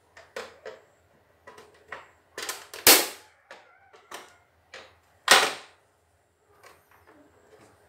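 Irregular clicks and knocks of a thin metal tool working in the needle and presser-foot mechanism of a CNY E900 embroidery machine, with two sharp, much louder knocks about three and five and a half seconds in.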